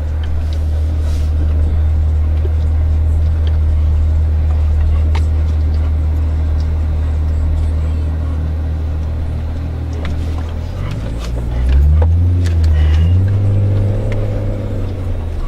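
Jeep driving off-road: a steady low engine and drivetrain drone, with the engine note rising and changing about eleven seconds in.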